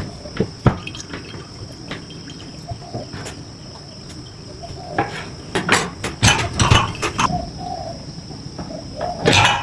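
Steady high-pitched chirring of crickets, with irregular sharp knocks and clatter of handled objects, thickest midway through and again near the end.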